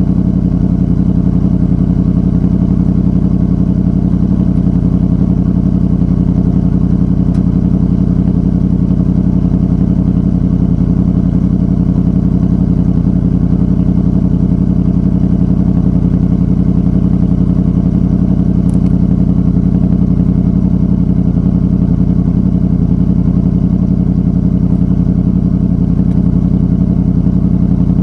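Honda VFR800 Interceptor's VTEC V4 engine running through a Two Brothers Racing exhaust, holding one steady pitch with no revving or gear changes.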